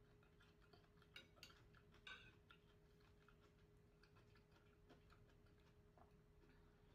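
Near silence: faint room tone with a steady low hum, and a few soft clicks from eating at the table between about one and two and a half seconds in.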